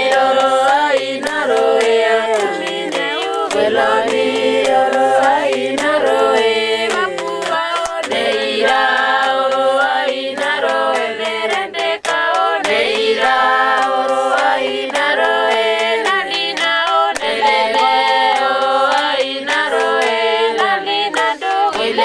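Group of Papuan highland voices singing unaccompanied, a chant-like song of held, wavering notes in phrases of about four to five seconds with short breaks between them.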